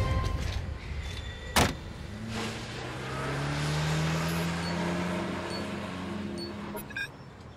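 A car door slams shut about a second and a half in. Then the car's engine pulls away, its pitch rising slowly as it drives off.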